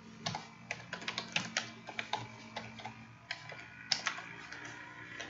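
Typing on a computer keyboard: a string of irregular keystrokes, a few a second, as a name is typed out, with one sharper click about four seconds in.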